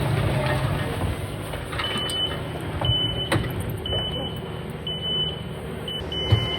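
Vehicle backup alarm beeping about once a second, starting about two seconds in, over a steady low engine rumble, with a knock and a thump mixed in.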